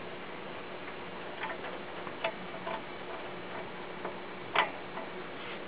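Scattered light clicks and rattles of wiring connectors being handled and plugged back onto a circuit board, the loudest click about four and a half seconds in, over a steady background hiss.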